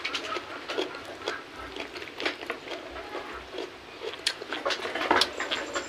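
Close-up eating sounds: chewing and mouth smacks in an irregular run of short clicks, as rice, fried chicken and raw kenikir leaves are eaten by hand.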